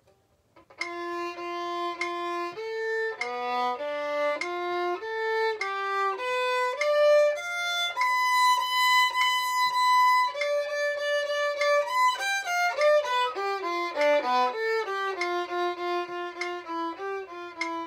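Solo violin playing an étude: after a short pause, a line of separate bowed notes, a high note held for about two seconds midway, then a quicker run of notes moving down to the lower strings.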